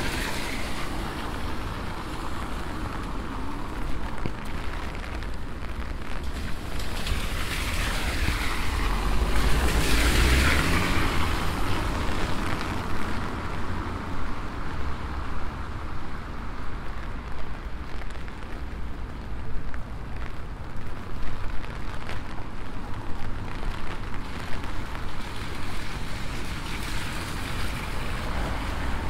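Steady rain on a wet city street. A vehicle passes, swelling with a low rumble and fading about ten seconds in.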